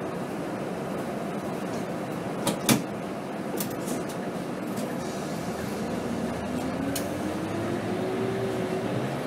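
2007 Scania K270 bus's diesel engine running steadily while stopped, heard from inside the cab, with two sharp clicks a little over two seconds in. From about halfway through, the engine note rises slowly as the bus pulls away.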